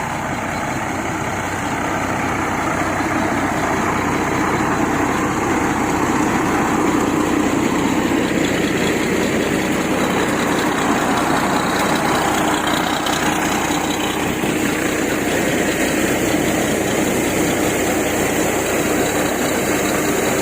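An engine running steadily, getting louder over the first few seconds and then holding level.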